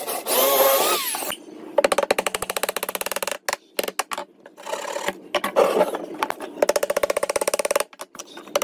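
Electric drill boring into wood, running in several short spells with a fast, even rattle and a whine that glides up and down at the start.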